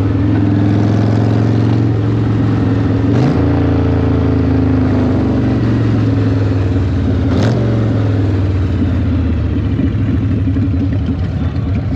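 Cruiser motorcycle engine running at road speed, heard from the rider's seat with steady wind rush. Its pitch steps up about three seconds in, then drops after a short click about halfway through, and the engine eases off near the end.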